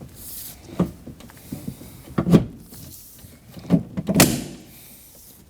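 Several sharp plastic clicks and knocks inside a Ford Edge front door, the loudest about two seconds in, as the window glass's white tabs are pressed down and snapped into their seats on the window regulator.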